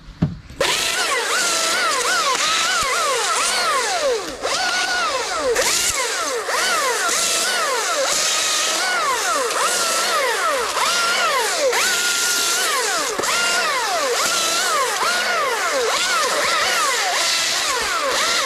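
Chainsaw revved up and down over and over, roughly once a second, its pitch climbing and dropping with each burst of throttle.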